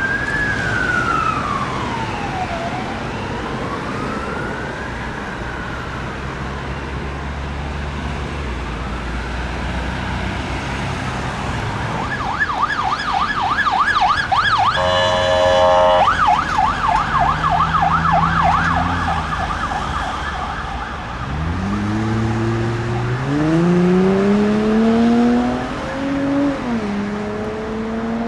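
Emergency-vehicle sirens passing: a slow wailing siren fades away over the first several seconds. About twelve seconds in, a fast yelping siren starts, with a blast of the vehicle's horn in the middle of it. Near the end, a vehicle's engine revs up through the gears.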